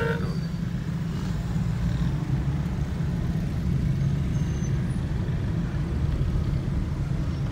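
Steady low rumble of engine and road noise inside a moving car's cabin, with city traffic around it.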